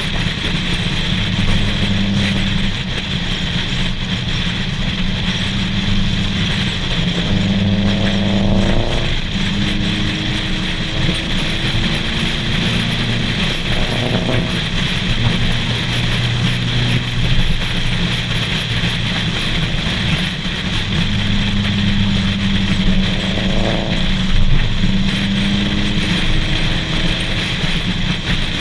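Car engines and road noise while driving in a cruise, with a steady low drone and the revs climbing three times as the cars accelerate. Wind buffets the microphone.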